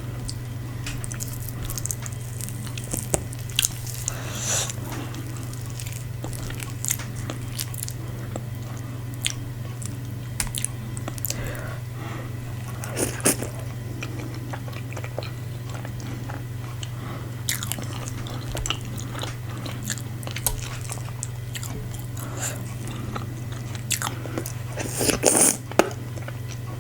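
Close-miked eating: a person chewing and biting fufu and assorted meats, with scattered short wet smacks and crunches and a louder flurry near the end, over a steady low hum.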